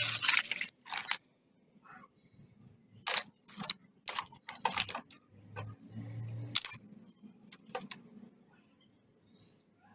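Rusty steel ball bearings and rusty iron pieces clinking and rattling against each other as they are handled in a wooden crate. A string of separate metallic clinks stops a little over eight seconds in.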